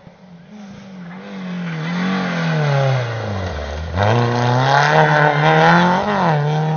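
Rally car engine getting louder as it approaches. Its note falls to a low pitch about three and a half seconds in, then jumps up as the car accelerates hard, revving high with a brief dip and rise again near the end.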